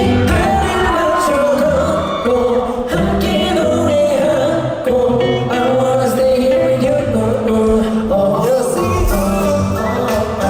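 Live pop music: male voices singing a melody over a band or backing track, heard through a concert sound system during a sound check.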